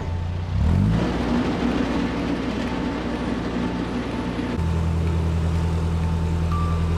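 Narrowboat's diesel engine running: it revs up with a rising pitch about a second in, runs harder for a few seconds, then drops back to a steady low tick-over a little past halfway.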